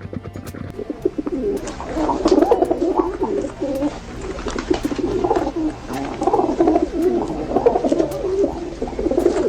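Pigeons cooing, several soft warbling coos overlapping continuously, starting about a second in.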